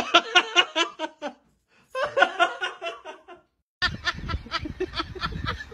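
A person laughing in rapid, high-pitched bursts, in two runs with a short silence between. After a brief silence about four seconds in, a different sound with regular pulses and a low rumble starts.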